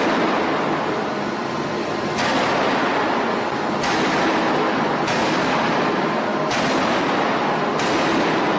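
Industrial forging hammer striking steel about every second and a half, over the steady din of heavy shop machinery.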